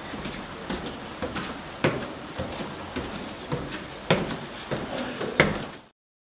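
Irregular knocks and clatters over a steady hiss, with sharper bangs about two seconds in, about four seconds in and near the end, after which the sound cuts off abruptly.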